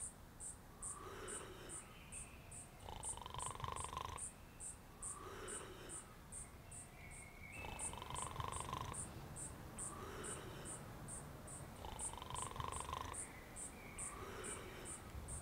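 Insects chirping steadily, about three high chirps a second, with lower calls that come back every few seconds in a regular cycle.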